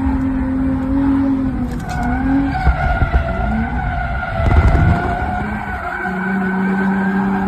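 Car drifting, heard from inside the cabin: the engine revs hard, its pitch wavering up and down, over a steady tyre squeal.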